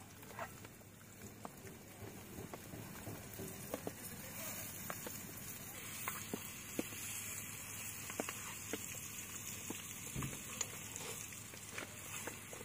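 Bananas frying in butter in a pan: a steady sizzle with scattered small pops and spits.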